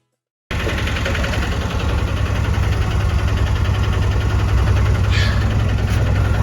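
Motor vehicle running with a steady low rumble of engine and road noise. It starts abruptly about half a second in.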